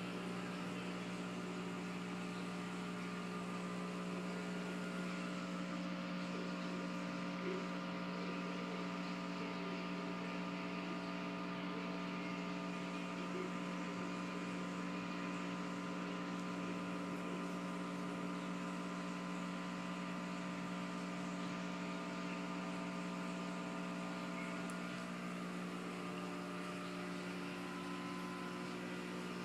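Aquarium equipment running: a steady electrical hum made of several fixed tones, unchanging throughout.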